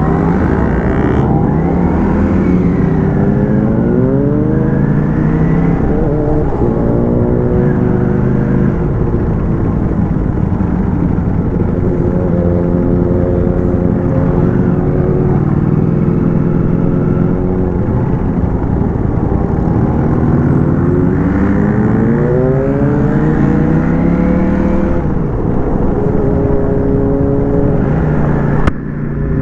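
Ducati Panigale V4S's V4 engine heard from on the bike, pulling up through the revs several times in rising sweeps, with steadier cruising stretches between.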